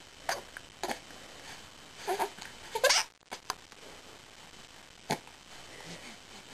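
Hiccups: a run of short, sharp hics at uneven spacing, the loudest just before the middle.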